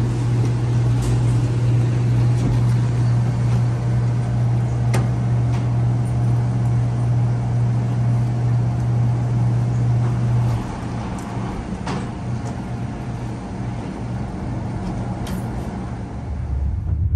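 Water vending machine's pump humming steadily while it dispenses, stopping about ten and a half seconds in. A few light clicks and knocks sound over it.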